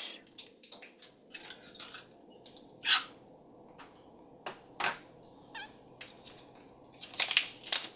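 Hands handling small toy packaging: scattered light clicks and plastic rustles, with a louder tap about three seconds in and a cluster of them near the end.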